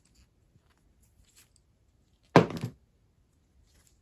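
Knipex nippers squeezing through a rivet head until it snaps off: one sharp, loud pop about two and a half seconds in, followed at once by a smaller second crack, with a few faint clicks of the tool before it.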